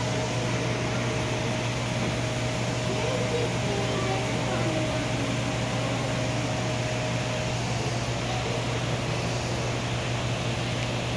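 Steady mechanical hum with a thin constant whine above it; the whine stops about seven and a half seconds in while the hum runs on.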